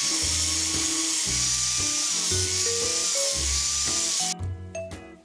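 Angle grinder with a sanding disc grinding the steel of an axe head: a steady high hiss and whine that cuts off suddenly about four seconds in.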